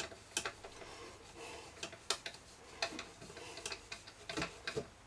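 Light, irregular clicks and taps from hands working on an amplifier circuit board fixed to a hardboard record-player motor board, as wires and small parts are handled and pressed into place.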